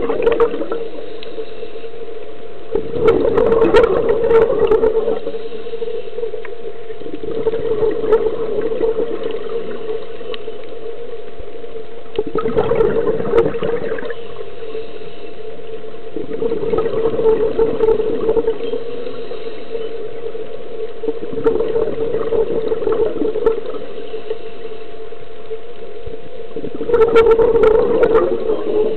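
Scuba diver's regulator breathing underwater: bubbly gurgling bursts of exhaled air about every four to five seconds, over a steady low hum.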